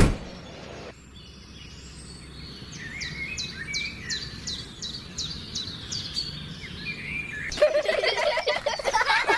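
Birds chirping: a run of quick, falling chirps about once or twice a second, then, near the end, a denser, busier bout of calls. A sharp click at the very start.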